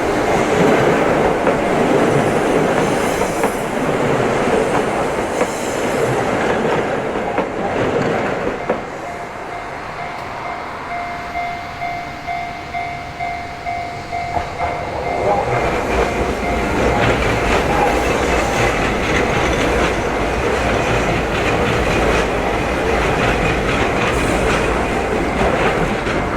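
Japanese level-crossing warning bell ringing with a steady repeating 'kan-kan' while a Keihan Keishin Line train passes over the crossing, its wheels clattering on the rail joints. The train noise fades about nine seconds in, leaving the bell clear, then rumble and clatter swell again from about fifteen seconds in as another passage begins.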